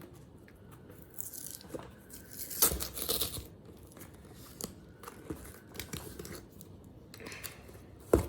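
Shipping packaging being handled and torn open by hand: scattered rustles, scrapes and small knocks, with a louder tearing rustle about two and a half seconds in.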